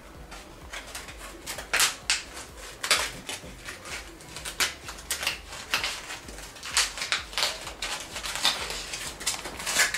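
Cut-off section of a thin plastic water bottle being rubbed dry in a cloth tea towel, the plastic crinkling in irregular sharp clicks.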